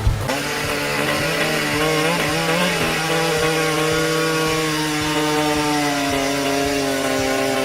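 Chainsaw engine running at high revs, its pitch wavering up and down for the first few seconds, then holding steady.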